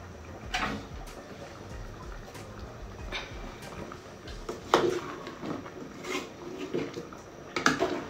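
A ladle stirring a metal pot of fish pepper soup: scattered knocks and scrapes against the pot, the loudest about five seconds in, with the soup moving around it.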